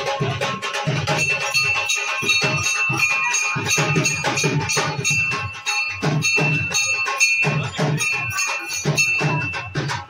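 Music with a regular drum beat and a held high melody line.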